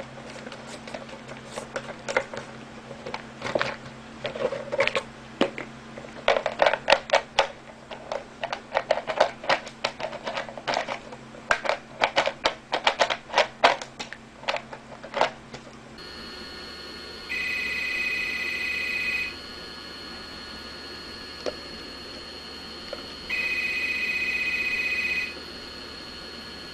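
A cat chewing and pawing at a plastic bottle cap and bag, making irregular plastic clicks and crackles. Then a corded desk telephone rings twice, each ring a steady electronic tone about two seconds long.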